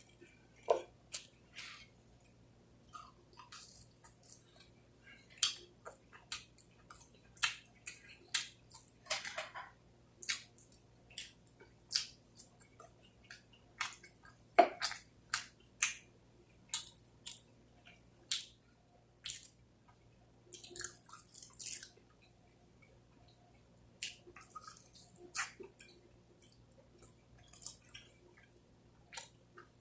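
A person eating: wet chewing, biting and lip smacks, heard as dozens of short, sharp clicks at an uneven pace.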